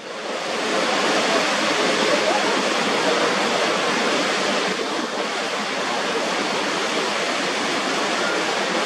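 Niagara's Horseshoe Falls pouring over its brink: a loud, steady rush of falling water that fades in over the first second.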